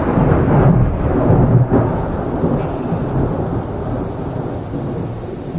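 Rolling thunder from a close lightning strike: a loud, deep rumble that slowly dies away over several seconds, with rain hissing underneath.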